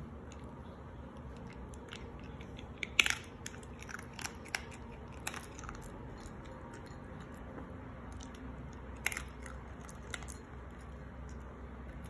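Small dog chewing dry kibble: a scattering of sharp crunches, the loudest about three seconds in, a cluster just after, and two more near the end.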